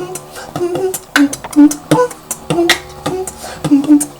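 Human beatboxing: rhythmic mouth-made kick and snare strikes with sharp clicks, interleaved with short hummed bass tones.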